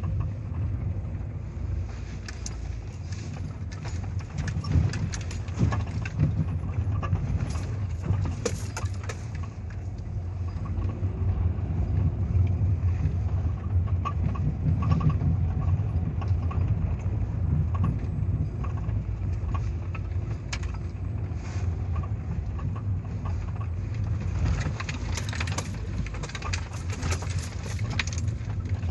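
Interior of a Mitsubishi Lancer IX driving over a washboard road: steady low tyre and road rumble with a loose rattling and knocking from the rear of the car over the small bumps. The rattle is of unknown source, searched for around the left rear wheel arch.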